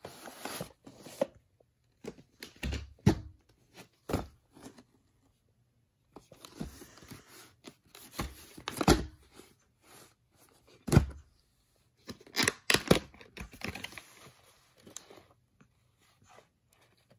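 Plastic VHS tape cases being handled: rustling and scraping as the cases are picked up and turned over, and a few sharp knocks of plastic being set down, the loudest about eleven seconds in. A plastic clamshell case is opened.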